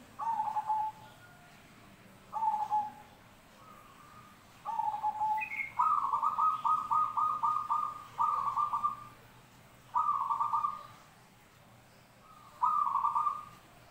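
Zebra dove (perkutut) cooing: short rolling coo phrases repeated every second or two, with one longer fast rolling stretch about six seconds in.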